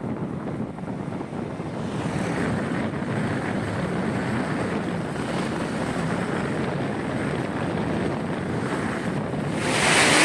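Wind buffeting the microphone as an unsteady low rush. Just before the end it switches abruptly to a louder, brighter rushing hiss.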